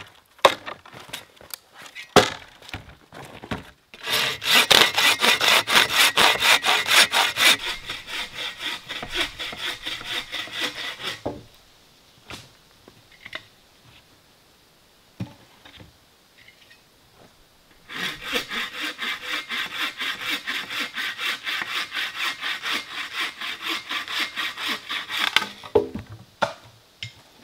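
Bow saw cutting through a dead branch laid across a stump, in two runs of rapid back-and-forth rasping strokes with a pause of several seconds between them. A few sharp knocks come in the first few seconds and again near the end.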